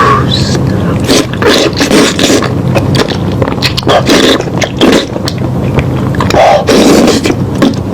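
Close-up eating sounds: someone chewing and tearing at meat, with uneven bites and chews over a steady low hum.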